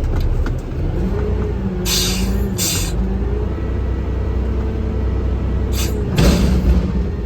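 Vehicle engine running under way with a steady low rumble, its pitch rising and falling with the throttle. Four or five short hissing bursts break in over it.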